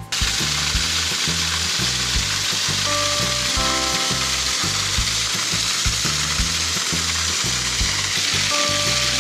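Small waterfall running down a rock face: a steady rush of water that cuts in suddenly at the start. Background music with a regular low beat and a few held notes plays underneath.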